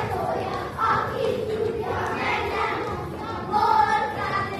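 A group of children singing a folk song together in unison, in phrases of held notes.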